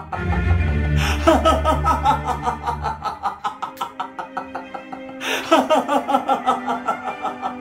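Background music with a steady pulsing beat, over which a man laughs in two bouts: one starting about a second in, the other a little after five seconds in.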